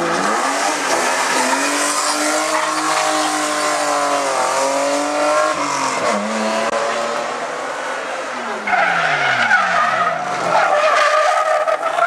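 BMW E36 rally car engine revving hard through a hairpin, its pitch climbing and falling repeatedly with sharp drops and recoveries as it shifts and accelerates away. Tyres squeal in the second half, and another car's engine comes in at the very end.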